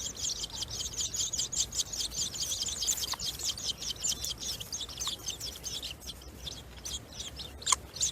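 Birds chirping in a rapid, continuous string of short high calls, several a second, thinning out in the second half, with a couple of louder single chirps near the end.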